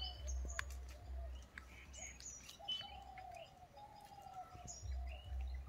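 Birds chirping: many short, high chirps together with a lower call that repeats as a series of falling notes. A low rumble comes and goes underneath, strongest near the start and end.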